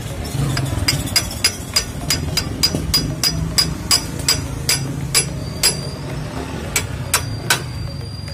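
A hammer tapping on a metal bracket: about twenty light strikes, roughly three a second with a short pause near the end, each with a brief high metallic ring, over a steady low hum.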